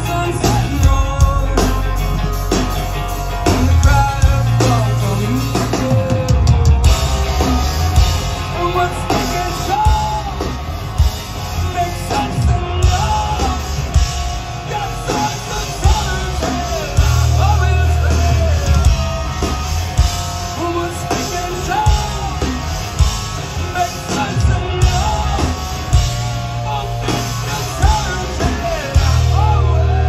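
Live rock band playing: distorted electric guitars, bass guitar and a drum kit, with a male lead singer's vocal over the top.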